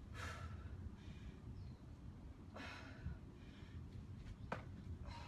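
A woman's heavy breathing from exertion: several short, hard exhales about a second apart, with a brief click about four and a half seconds in.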